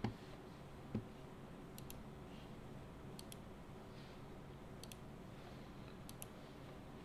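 Two sharp mouse clicks about a second apart, then a quiet steady low hum with faint paired high ticks every second and a half or so.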